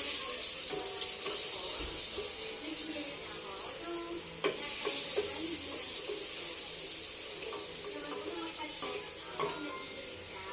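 Butter and a little cooking oil sizzling in a hot pan, a steady hiss that slowly eases off. A sharp knock about four and a half seconds in and another near the end.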